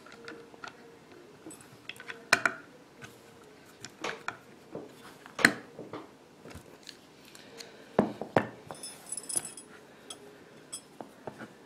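Small steel parts of a Marlin 39A's trigger and lever assembly and a screwdriver clicking and clinking as its screws are snugged down and the parts handled: irregular light taps and clicks.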